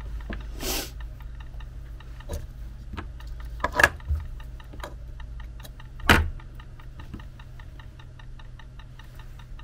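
Hands handling insulated wire and heat-shrink tubing: a short rustle and a few sharp clicks, the loudest about six seconds in. Underneath is a steady low hum and a fast, even ticking of about five or six ticks a second.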